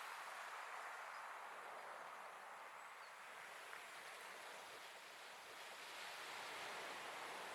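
Waves washing onto a sandy beach: a steady rush of surf that eases off in the middle and builds again near the end.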